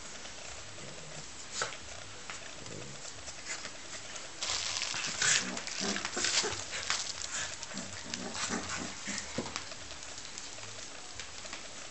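Rottweiler puppy and Cavalier King Charles spaniel play-fighting: scuffling and snuffling with short growls, busiest from about four seconds in until about nine seconds.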